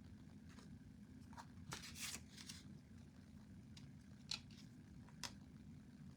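Near silence over a low steady hum, broken by a brief faint rustle about two seconds in and two light clicks later on, like small pieces being handled.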